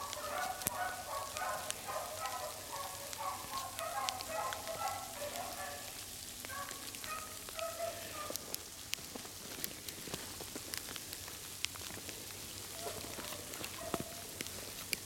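A pack of beagles baying while running a rabbit, their voices dying away about halfway through with a few more calls near the end. Frozen rain ticks steadily throughout.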